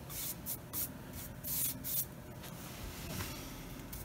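A small bristle brush stroking and dabbing colour onto wood, with several brief swishes in the first two seconds and fainter brushing after.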